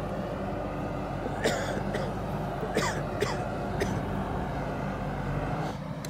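Diesel engine of a JCB backhoe loader running steadily as the machine works up to a stranded truck, with four short sharp knocks in the middle. The engine note drops near the end.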